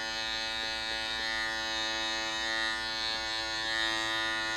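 Cordless electric hair clipper with a 1.5 guard attached, running with a steady buzz as it is worked up through short hair at the side of the head.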